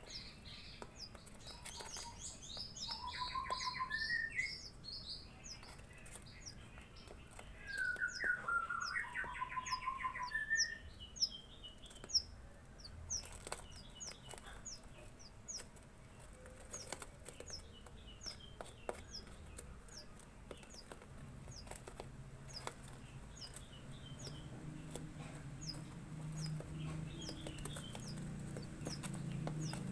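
Young Javan bushlarks calling in two bursts of chirps, with a short high chirp repeated about once a second throughout. A low hum rises in the last third.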